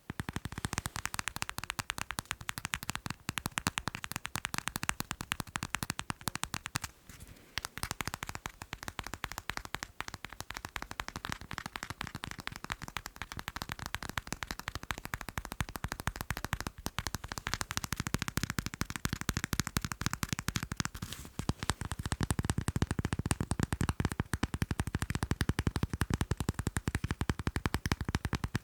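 Fast tapping on macarons: a dense, rapid stream of small taps, with a brief pause about seven seconds in and a fuller, deeper tapping sound from about two-thirds of the way through.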